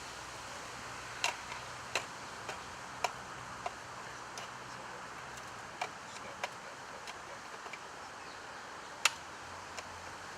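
Steady background hiss with scattered sharp clicks at irregular intervals, the loudest about nine seconds in.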